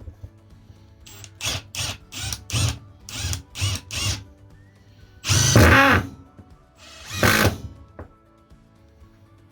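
Milwaukee M18 brushless cordless tool motor given about eight quick short trigger pulls, then run twice for just under a second each, spinning up and winding down.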